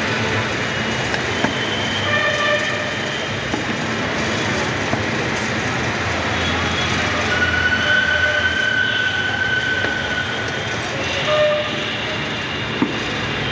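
Steady rumble of a busy street with several long, high-pitched squealing tones over it, the longest running for about three seconds past the middle.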